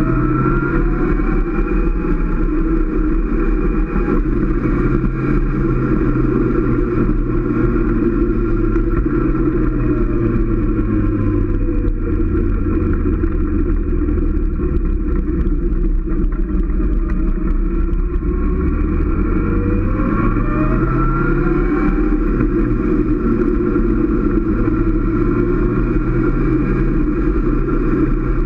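Motorcycle engine running at road speed. Its note drops about ten seconds in and climbs again shortly before twenty seconds, as the bike eases off and speeds up again.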